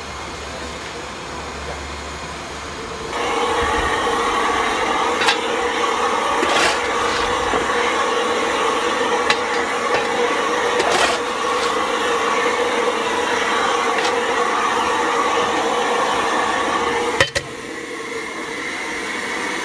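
Firing a steam locomotive. About three seconds in, the firehole door opens and the steady rush of the fire gets louder. A coal shovel knocks against the firehole several times as coal goes in. Near the end the door shuts with a sharp clang and the fire sound drops back.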